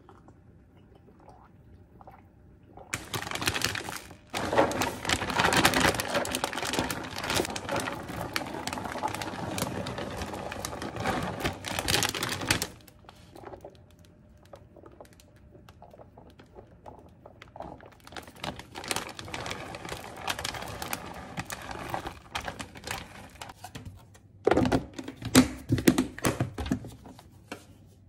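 Crinkling of a plastic bag of shredded cheese and the rustle of the cheese being poured and spread into a plastic food container, loud for the first half and quieter later. A cluster of sharp clicks and knocks near the end.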